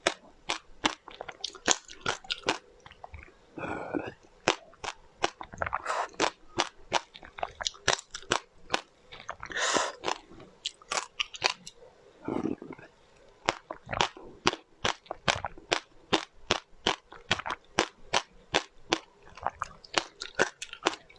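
Close-miked chewing of crunchy food: rapid, sharp crunches about three to four a second, with a few longer, softer mouth sounds between them.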